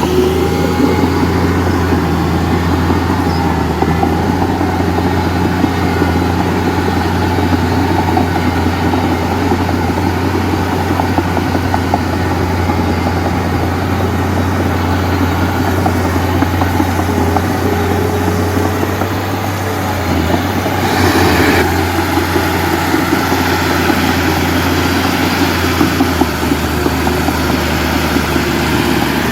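Heavy diesel engine of earthmoving or dump-truck equipment running steadily under load, with a constant low drone and dense clatter. A brief hiss cuts in about 21 seconds in.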